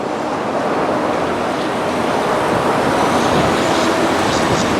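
Heavy-haulage trucks pulling an oversize load up a hill, a steady, dense mix of engine and tyre noise.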